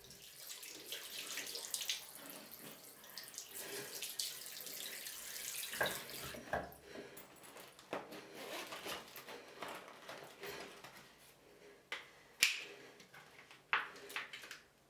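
Water running from a tap into a sink, with splashing as hands move in it, and a few sharp knocks near the end.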